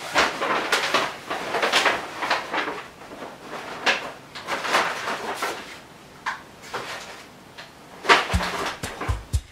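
Brown paper shopping bag rustling and crinkling as it is handled, in irregular bursts. A bass-heavy music beat comes in near the end.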